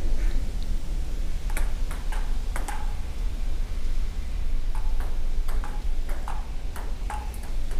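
Table tennis rally: a ping-pong ball clicking off paddles and table in quick runs of sharp ticks, pausing briefly midway, over a steady low rumble.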